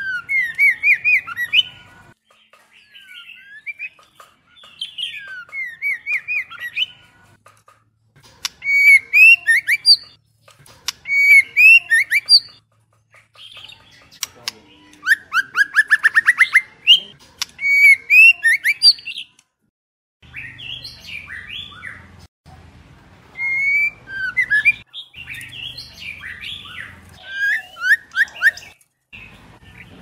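White-rumped shamas singing and calling: bursts of varied whistled phrases and harsh chattering notes, with a quick run of repeated notes rising in pitch about halfway through.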